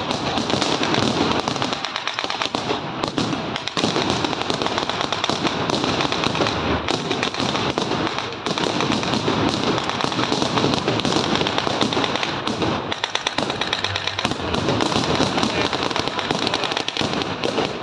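Rapid blank gunfire from reenactors' rifles and other small arms: many sharp shots in quick succession, crackling almost without a break.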